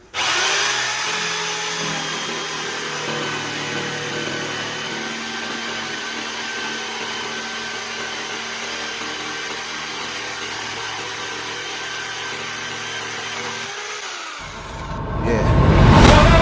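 Uchiha UC 65 electric jigsaw motor starting, running steadily for about fourteen seconds, then winding down. A deep booming swell follows near the end.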